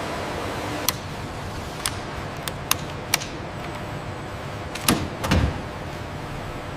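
Steady industrial hangar background noise with scattered sharp clicks. Two heavier low clunks come about five seconds in.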